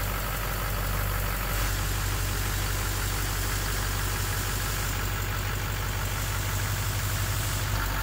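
2009 Chevrolet Duramax LMM 6.6-litre V8 turbodiesel idling steadily after the transmission reinstall, with its intermittent knock not present at this moment.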